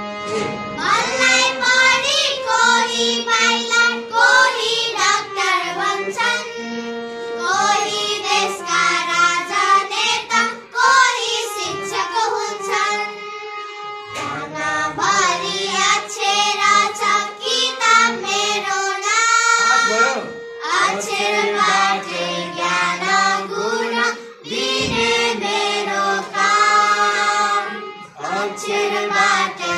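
A small group of young schoolgirls singing a melodic song together, in phrases with short pauses for breath between them.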